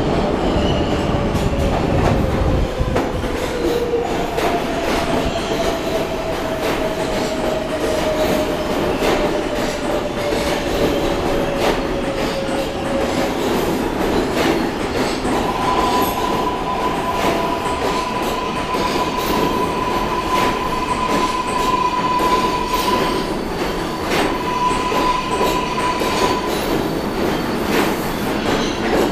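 R188 subway train pulling into an underground station: a loud continuous rumble of wheels on rail with occasional clacks. Over the first half a tone slowly falls in pitch, and from about halfway a steady higher squeal holds for around ten seconds as the train slows.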